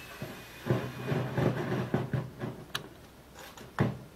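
Audio of an MFJ-8100K regenerative shortwave receiver: a faint high regeneration whistle slowly falls in pitch and fades out about a second in as the regeneration trimmer is backed off, followed by irregular crackles and scratchy noise bursts.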